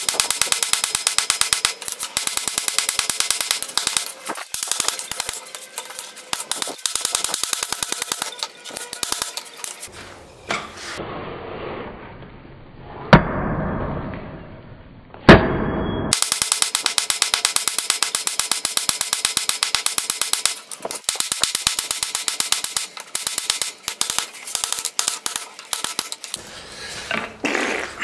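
Hand hammer striking a glowing bar of O1 tool steel on an anvil. The blows come in a fast, even run, and the anvil rings under them. In the middle the run stops for a few seconds, with two single hard strikes about two seconds apart, then the rapid hammering resumes.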